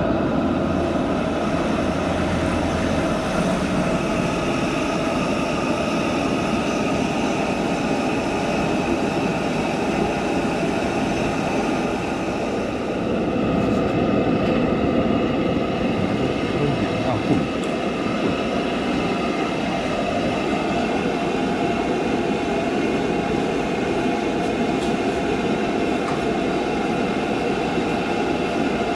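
Gas burner under a large aluminium pot running with a steady rushing noise, and water splashing into the pot about fourteen seconds in.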